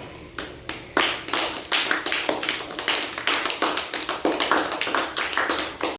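Hands clapping: a small group applauding in quick, uneven claps that start about a second in and keep going.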